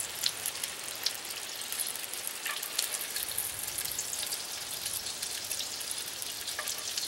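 Chicken thighs frying in hot oil in a cast-iron Dutch oven: a steady crackling sizzle. A few sharp clicks of a metal spoon against the pot stand out as the pieces are lifted out.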